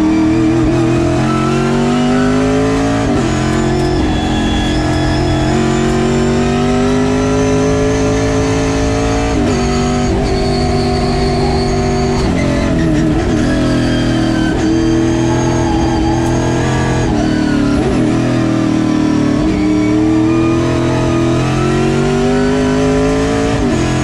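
A road-course stock car's engine at racing speed, heard from inside the cockpit. Its pitch climbs steadily under throttle, then drops sharply, over and over through the lap.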